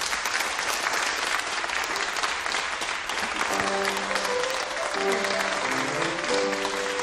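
Audience applauding, with a gentle music score coming in about halfway through.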